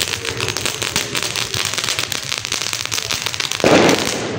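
A string of small firecrackers (a ladi) going off on the ground in a rapid, uneven run of small pops and crackles, with one louder burst near the end.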